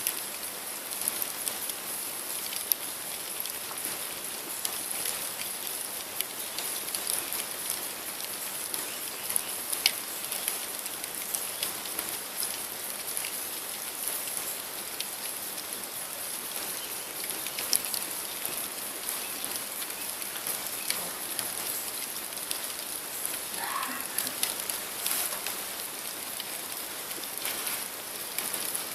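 Wood campfire burning, crackling steadily over a soft hiss, with frequent sharp pops.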